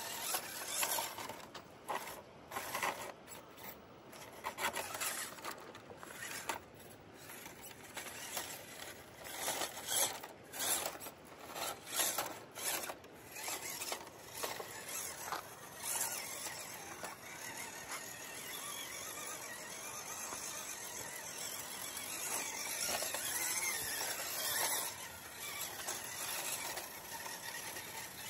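A WPL C24 1/16-scale RC crawler's small electric motor and gear drive whining, its pitch rising and falling as the truck crawls. Sharp clicks and knocks are heard in the first half.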